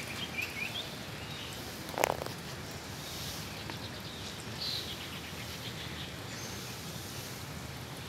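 Open-air background noise with small birds chirping now and then, and a single sharp knock about two seconds in.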